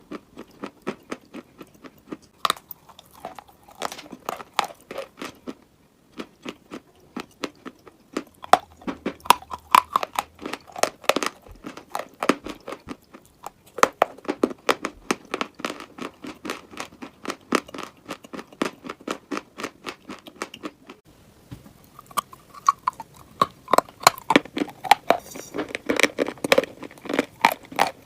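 A person biting and chewing crunchy chalky material, with rapid crisp crunches that pause briefly twice.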